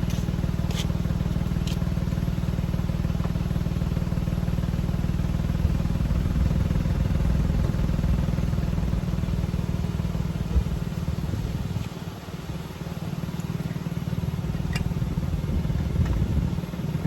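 An engine running steadily at idle, with a few faint clicks over it.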